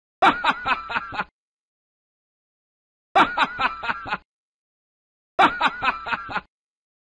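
Horror-film evil laugh sound effect: a short 'ha-ha-ha' of about five quick syllables, played three times, each burst about a second long with dead silence between.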